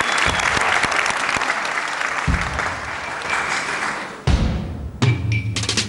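Studio audience applauding, the clapping thinning out; about four seconds in, the tango music starts with loud, deep accented chords, three of them about half a second apart.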